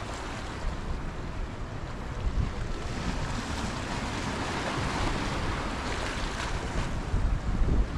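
Sea surf washing in, swelling through the middle, with wind buffeting the microphone in low rumbling gusts near the end.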